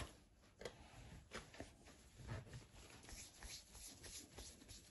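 Near silence with a few faint taps and clicks: a plastic dough scraper cutting dough on a silicone baking mat, and hands handling the dough. The sharpest click comes right at the start.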